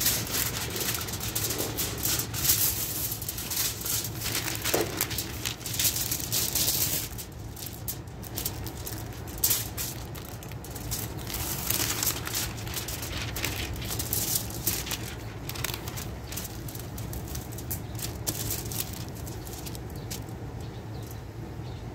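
Sheets of aluminium foil and paper being handled and smoothed out, crinkling and rustling in irregular bursts that are busiest in the first few seconds, over a steady low background rumble.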